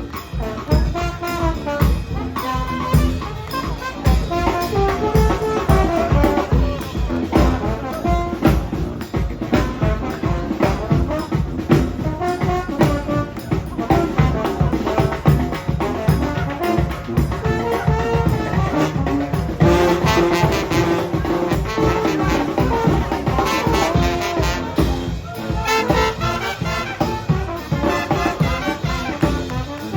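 Brass band playing live: trumpets and trombones carrying the melody over a steady drum beat, growing brighter and fuller about two-thirds of the way through.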